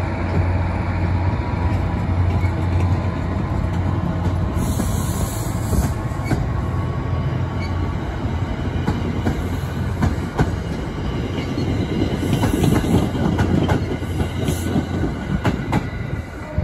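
MBTA commuter train coaches rolling past close by as the diesel-hauled train departs: a steady low drone of the locomotive for the first half, then rumbling and a quick run of wheel clicks over the rail joints that grows loudest as the rear cab car passes.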